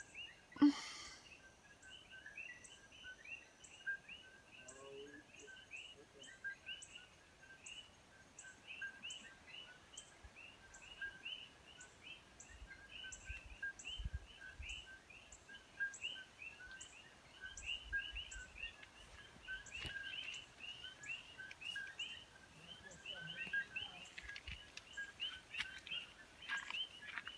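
A dense dusk chorus of many small animals, short chirping calls overlapping several times a second, with a faint high ticking about twice a second. A single sharp knock sounds just under a second in.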